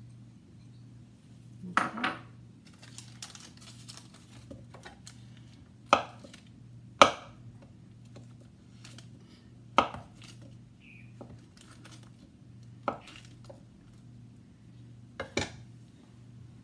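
Sharp knocks and clacks of a kitchen knife on a cutting board and of kitchenware against a glass baking dish while butter is sliced, about six separate strikes with quiet gaps between. A low steady hum runs underneath.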